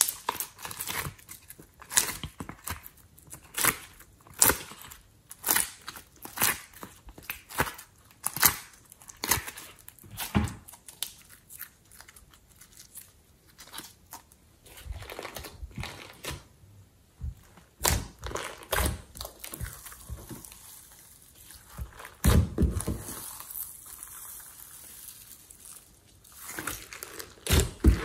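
Glossy slime worked by hand, making sharp wet clicks and pops as it is pressed and squeezed between the fingers. Later on it gives denser crackling squelches as it is kneaded and mixed.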